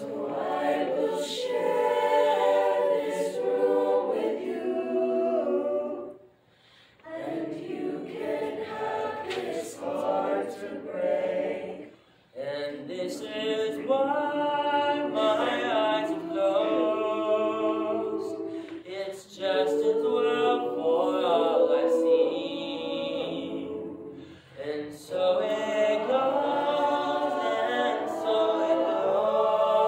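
Mixed chamber choir of men's and women's voices singing a cappella in sustained chordal phrases, with short breath pauses between phrases.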